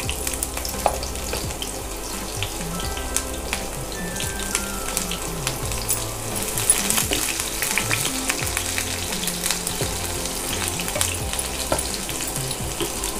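Freshly added chopped onion sizzling and crackling in hot oil with mustard seeds and lentils in a nonstick pan, stirred with a slotted spatula. This is the onion-frying stage of a tempering.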